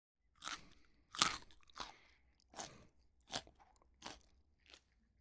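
Rabbits chewing crisp lettuce: a series of about seven short crunches roughly two-thirds of a second apart, the second one the loudest.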